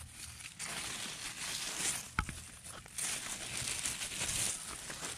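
Thin plastic glove crinkling and dry leaves rustling as a gloved hand sprinkles fertilizer around the base of a bean plant, with a sharp click a little over two seconds in.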